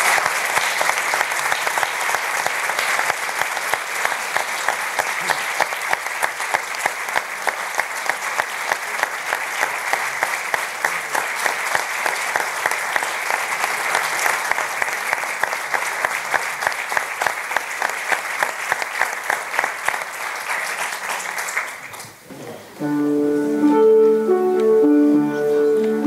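Audience applauding, dense steady clapping that stops after about twenty seconds. A second later a piano starts playing chords.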